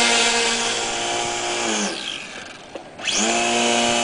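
RC Cessna model plane's motor and propeller running up to a steady whine twice. The first run holds and then spins down about two seconds in. The second spins up again about three seconds in and holds.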